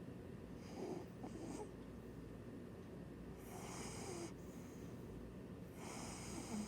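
A cat snoring in its sleep: three soft, breathy snores about two and a half seconds apart.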